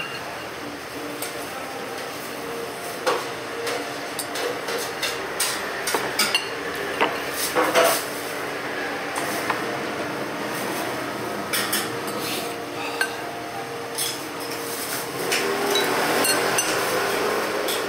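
Metal spoon clinking and scraping against ceramic soup bowls while eating, a scatter of short sharp clinks over a steady background hum.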